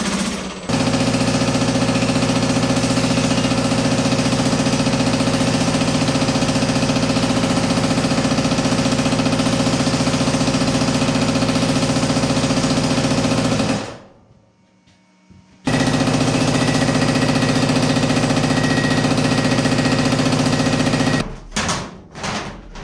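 Power hammer running, striking a sheet-metal panel in a fast, steady stream of blows to stretch the metal. It stops for about two seconds midway, runs again, and stops near the end, followed by a few separate knocks.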